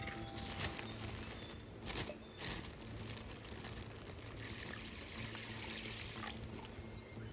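Water pouring and trickling, with a few faint clicks.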